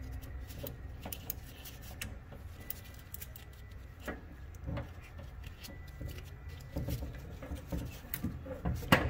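Handling noise of wiring-harness leads and metal ring terminals being moved into place on an alternator's terminal studs: scattered small clicks and light rattles, with a sharper click near the end.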